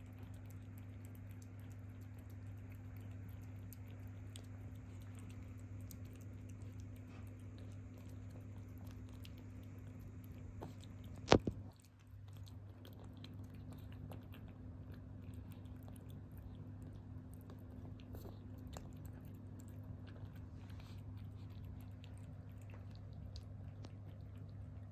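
Calico cat eating wet food, with many small, quick, moist chewing clicks over a steady low hum. One sharp, loud click about eleven seconds in.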